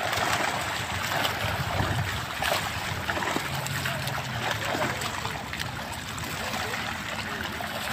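Many fish trapped in the shallows by a drag net, thrashing and splashing at the surface: a steady dense splashing, with many small sharp splashes.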